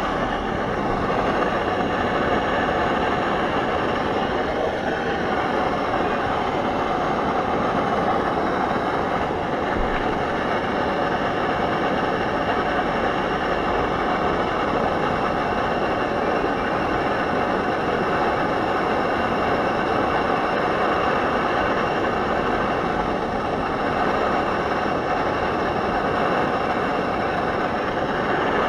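Primus OmniLite Ti gas stove burning steadily at full output on butane/propane mix, a constant even hiss under a pot of water that is heating toward the boil.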